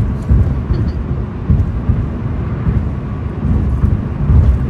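Low rumble inside a car's cabin: the car's running and road noise, heard from inside.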